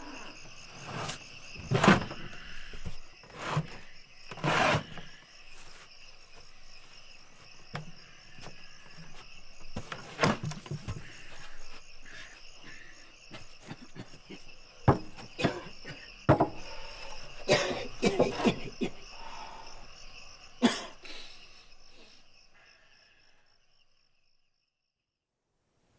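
Crickets chirping steadily at night, with scattered loud knocks and thuds throughout. Everything fades out near the end.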